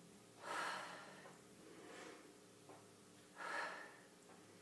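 A woman's short, hard breaths of exertion during plank leg lifts, two of them about three seconds apart, with a fainter one between; quiet.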